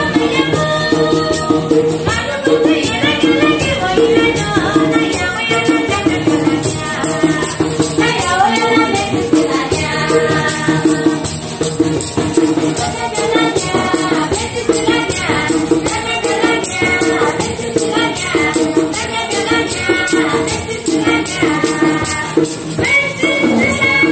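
Women singing a Hani mountain folk song together, over music with a steady rattling shaker beat.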